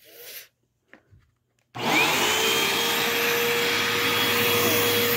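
A few faint handling sounds and a click, then a Hoover Elite Rewind Plus upright vacuum cleaner switches on about two seconds in. Its motor spins up with a quickly rising whine and runs steadily, the brush roll turning again on a newly replaced belt.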